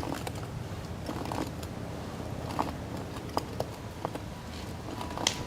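Scattered light clicks and knocks of PVC pipe and compression coupler parts being handled and fitted, over a steady low hum.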